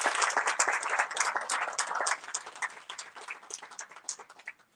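Audience applauding, the clapping thinning to a few scattered claps and dying away near the end.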